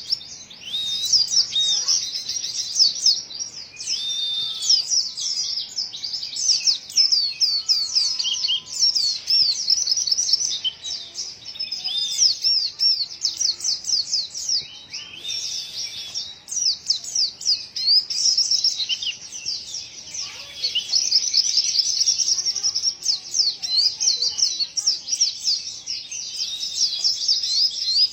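A pleci (white-eye) singing a long, fast, high-pitched twittering song of rapid chirps and quick pitch sweeps, with a few short lulls; an unusual song for a white-eye.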